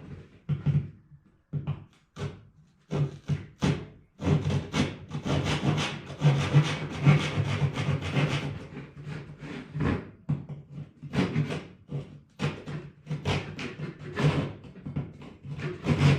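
Pull saw cutting through a wooden dowel by hand in quick back-and-forth strokes, packed close together in the middle and more spaced out toward the end.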